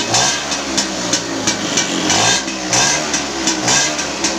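Motorcycle engine running, revved in repeated short throttle blips; it has just been brought back to life after standing unused for three years.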